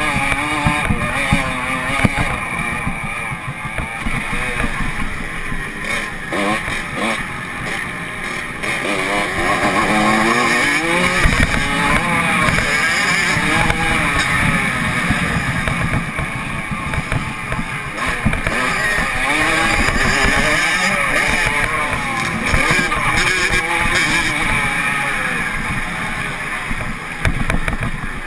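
Motocross bike engine revving hard, its pitch rising and falling again and again as the rider opens and closes the throttle and shifts gears around the track, with wind buffeting the microphone.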